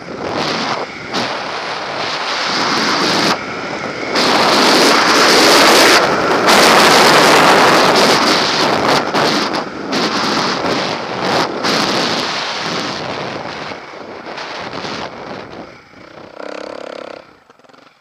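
Husqvarna TE310's single-cylinder four-stroke engine running hard through dune sand, mixed with heavy wind rush on the camera microphone. The noise builds to its loudest in the middle, then dies down toward the end.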